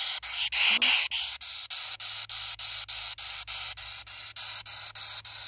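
P-SB7T spirit box radio sweeping through stations: a steady hiss of static chopped about four times a second, over a low hum. A brief louder snatch of sound comes through about half a second in.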